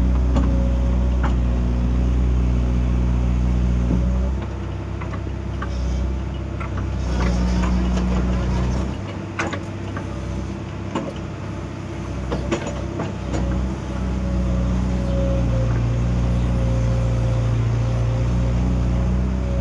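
Excavator's diesel engine running with a steady whine over it; the engine note eases off about four seconds in and dips again in the middle while scattered knocks and clatters sound, then it settles back to steady running near the end.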